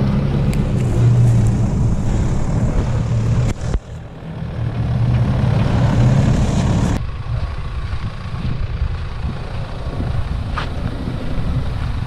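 Four-wheel-drive vehicle engines running at low speed on a rough dirt trail, heard across several spliced clips: a brief dropout about four seconds in, then a different, quieter engine sound from about seven seconds on.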